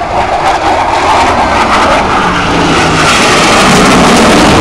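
Blue Angels F/A-18 Hornet jet flying low past the crowd, its twin-engine jet roar growing louder over the first few seconds and then holding at full strength, with a faint tone gliding downward in pitch as it passes.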